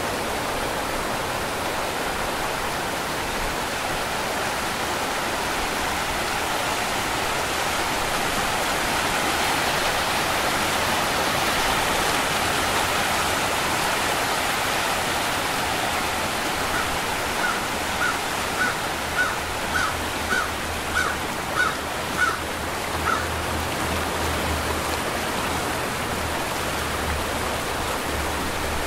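Waterfall's steady rush of falling water. Past the middle, a bird calls about a dozen times in quick succession, roughly two calls a second.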